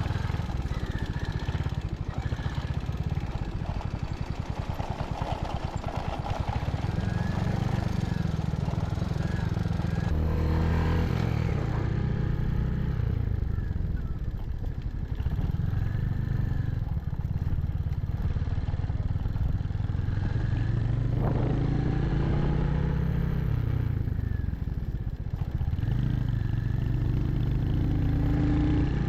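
Royal Enfield Hunter 350's single-cylinder engine running under way, its pitch rising and falling again and again as the throttle opens and closes.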